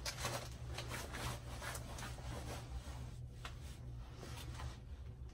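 Soft, irregular rustling and rubbing of clothing close to the microphone as an arm moves, over a low steady hum.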